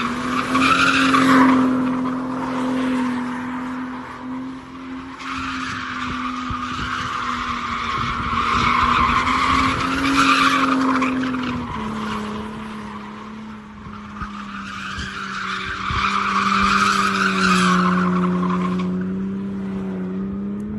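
Rear-drive sedan doing donuts: tyres screeching in three long spells while the engine is held at steady revs, its pitch dropping a step about halfway through.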